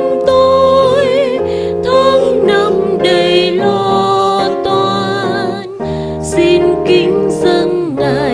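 Hymn singing at the preparation of the gifts: a voice holding long notes with vibrato over sustained instrumental accompaniment, in phrases broken by short pauses.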